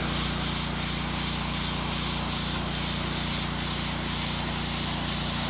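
Pressure washer spraying stamped concrete to strip release-agent residue. A steady hiss swells and fades about twice a second over a steady low hum.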